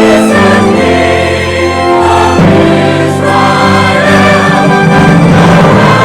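Choir singing with orchestral accompaniment, sustained chords changing about every second or so.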